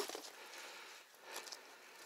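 Faint rustling with a few small clicks and taps, a sharper knock right at the start: a person shifting about on fallen wood and brush.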